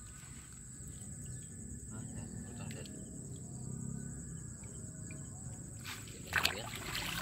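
Steady high-pitched drone of insects such as crickets, with a low rumble of outdoor background beneath it. A short burst of noise stands out about six seconds in.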